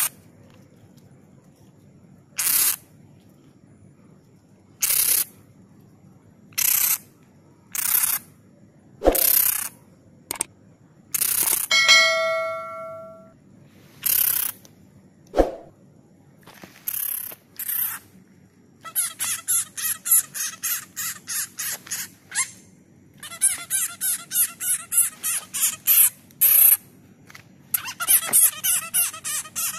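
A grounded small bat gives short, harsh, high-pitched shrieks every second or two, then runs of rapid chattering calls, about five a second, in the second half. A descending chime sound effect plays once, about twelve seconds in.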